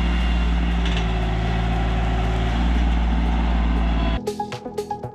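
Compact diesel tractor engine running steadily. About four seconds in it cuts off suddenly and music with a steady, plucked beat starts.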